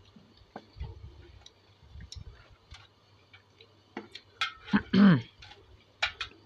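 Spoon stirring thick, cooked sweet vermicelli in a metal pot: scattered light clicks and taps of the spoon, with one brief louder sound about five seconds in that dips in pitch.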